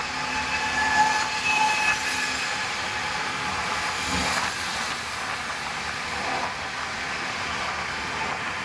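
Steady ride noise from the passenger seat of a moving rickshaw: road and wind noise, even and unbroken.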